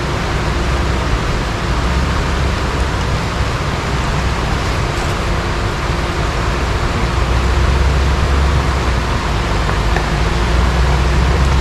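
Power Wagon truck running steadily on the trail, its engine a low hum under a loud, even hiss.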